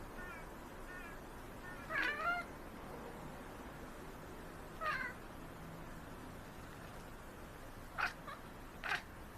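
Domestic cats meowing: a few faint chirps at first, a louder meow about two seconds in, another around five seconds, then two short, sharp calls near the end.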